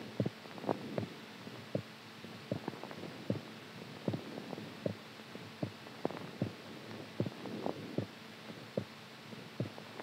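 Heartbeat picked up close to a microphone: short thuds, some in close pairs, about two a second, over a steady low hum.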